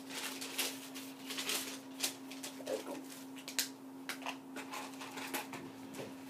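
Paper and craft materials being handled at close range: irregular rustles, crinkles and small scratches, over a steady low hum.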